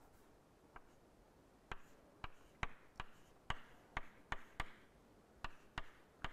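Chalk tapping and clicking on a chalkboard as a bracket expression is written: about a dozen faint, sharp taps, one near the start, then a quick run of roughly two a second, a short pause, and a few more near the end.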